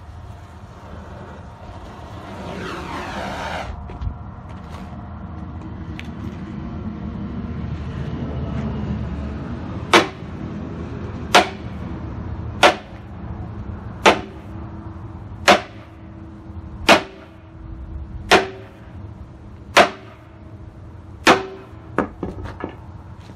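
A sledgehammer strikes a bent AR500 hardened-steel gong plate about ten times, roughly one blow every second and a half from about ten seconds in. Each blow is a sharp clang that leaves the plate ringing. The plate is so hard that the blows barely dent it. An engine runs underneath throughout.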